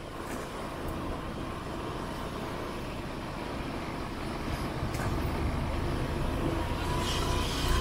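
Motor vehicle running on the road: a steady engine and road rumble that grows gradually louder, with a faint thin whine near the end.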